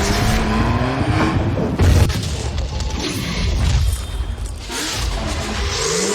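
Cinematic intro sound effects over music: rising sweeps, a deep boom about two seconds in, and noisy swooshing swells.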